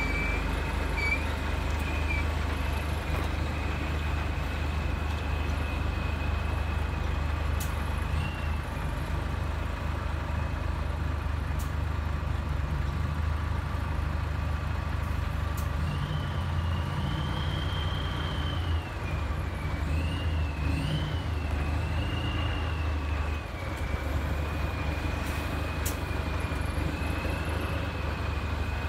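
Heavy Scania and other show-truck diesel engines idling and pulling slowly, a steady deep rumble. A thin high whine runs over it, wavering up and down in pitch around the middle.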